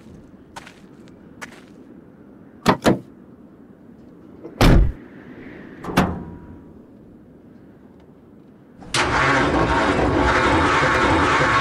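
Several sharp knocks, two close together near three seconds and the loudest a little under five seconds in. About nine seconds in, the 1973 Ford Ranchero 500's V8 starts suddenly and runs loudly.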